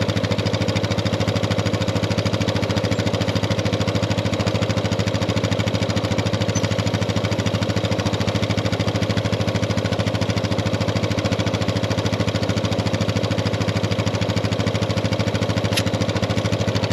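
ARB portable air compressor running steadily with a fast, even chattering pulse, pumping up a punctured tyre to find the leak, with the Yamaha Viking's engine idling underneath. A single short click about a second before the end.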